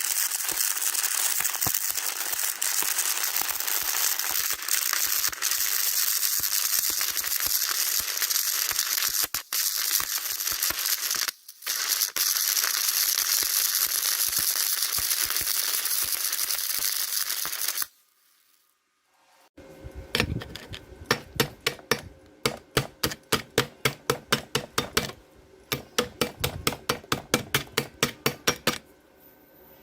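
Electric arc welding: a steady crackling hiss with sharp pops that stops suddenly. After a short pause, metal is struck in a quick run of ringing taps, about three a second.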